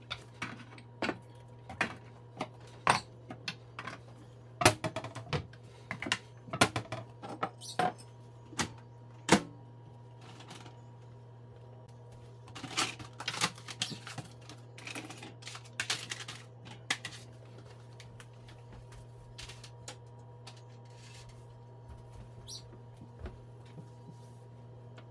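Metal cans and other kitchen items being picked up and set down on a granite countertop: a string of irregular sharp knocks and clatters, thinning out in the last third. A steady low hum runs underneath.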